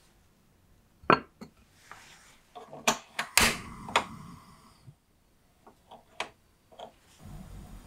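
Glass pot lid clinking and rattling against the rim of a small frying pan as it is put on, with several sharp knocks and a brief scraping rattle in the middle, then lighter ticks. Near the end a low steady hum starts.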